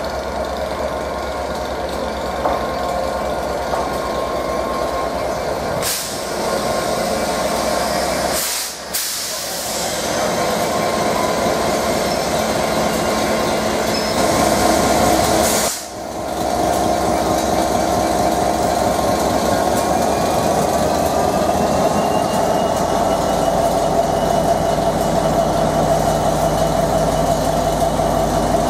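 Colas Rail Class 67 diesel locomotive's two-stroke V12 engine running steadily at low revs. A faint whine rises a little over two-thirds of the way through.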